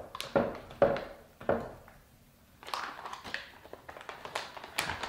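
Mango chunks tipped from a plastic bag dropping into a plastic blender cup, with a few sharp knocks in the first second and a half. Then the plastic bag crinkles and rustles as it is handled.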